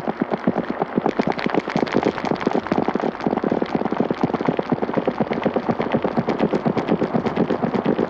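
Many overlapping footsteps, a dense, rapid clatter of sharp steps, many to the second and unbroken.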